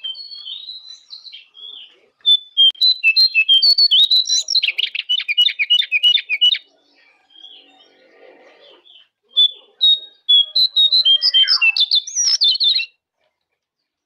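Jongkangan songbird singing in bursts of high chirps and fast trilled runs. A loud stretch of quick repeated notes is followed by a short pause, then a second burst that stops about a second before the end.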